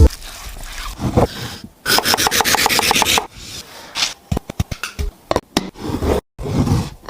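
Kitchen scraping: a run of rapid, even scraping strokes, about ten a second, lasting just over a second, followed by scattered sharp taps and clicks.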